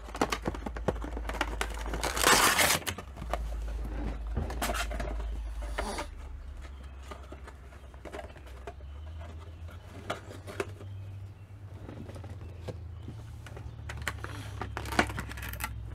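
Cardboard Funko Pop window box being opened and its clear plastic clamshell insert handled: crinkling, rustling and clicking in irregular bursts, loudest about two seconds in.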